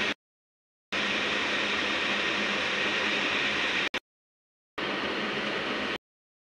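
Steady hissing background noise, cut off abruptly to dead silence three times.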